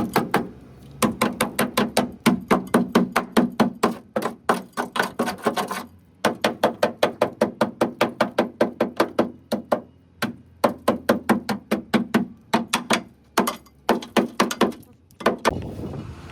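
Rapid hammer blows on sheet metal, about six a second, in runs of a few seconds broken by short pauses, each blow with a short metallic ring.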